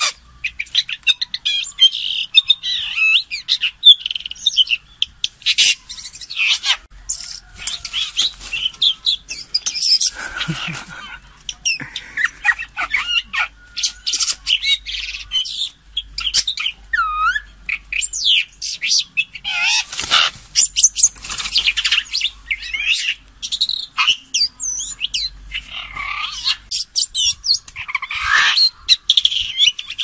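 Red-billed blue magpies calling without a break: a busy run of harsh chattering calls, sharp clicks and short gliding whistles.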